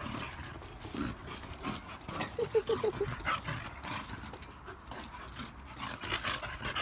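Two chow chows play-fighting, panting and making short dog noises, with a quick string of about five short pitched sounds a little over two seconds in.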